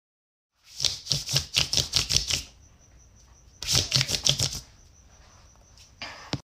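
Two runs of rapid clicking or tapping, about six or seven clicks a second. The first run lasts about a second and a half, the second about a second, with a faint steady high whine between them and a short rustle near the end.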